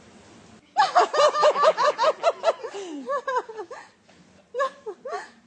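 A single high-pitched laugh close by, a quick run of ha-ha bursts several a second that slows and trails off, then two more short laughs near the end.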